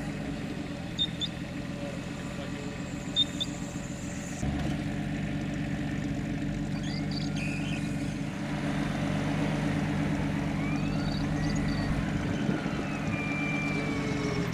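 Off-road vehicle engine running steadily, a little louder after about four seconds and again after about eight.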